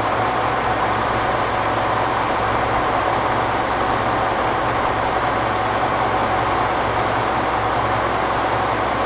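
Diesel engine of a KTR001 'Tango Explorer' railcar idling steadily, an even hum with no change in pitch.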